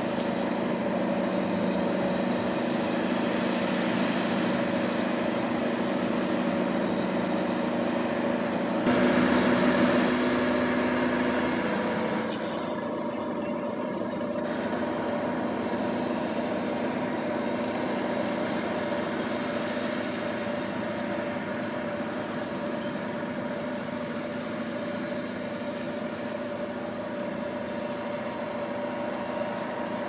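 Diesel engine of a rail-mounted Ohio crane pile driver running steadily, louder for a few seconds about nine seconds in, with no hammer blows.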